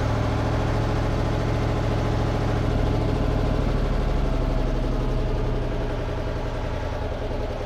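Dennis RS130 fire engine's engine running steadily as the truck drives along, heard from inside the cab; it eases off a little about two-thirds of the way through.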